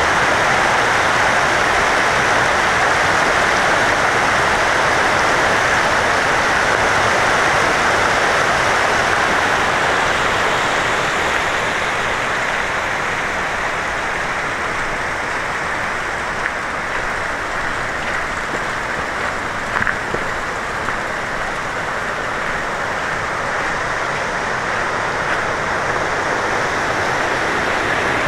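Steady rush of running water, easing a little after about ten seconds, with a faint click about twenty seconds in.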